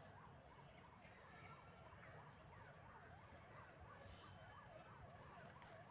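Faint, distant siren warbling rapidly up and down, about four rises and falls a second, with a few brief higher chirps over a low background rumble.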